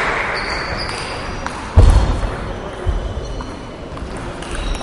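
Table tennis in a sports hall: applause dying away at first, then a heavy low thud about two seconds in and a weaker one a second later. Sharp clicks of the ball on bats and table come near the end as a rally gets going.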